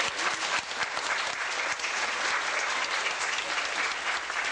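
Congregation applauding: many hands clapping at a steady level.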